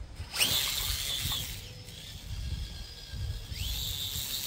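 Brushless motor of an RC rock crawler (1850kV) whining at full throttle on a 4S lipo. The whine rises sharply about half a second in, holds high, drops off, then climbs again near the end and holds.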